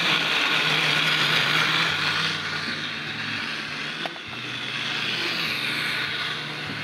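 Countertop blender running steadily, blending bananas, coconut oil, water and brown sugar into a thick cake batter. The level dips a little about two seconds in and again about four seconds in, with a brief click near the second dip.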